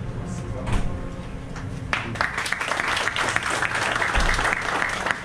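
A small group of people clapping their hands in applause, starting about two seconds in.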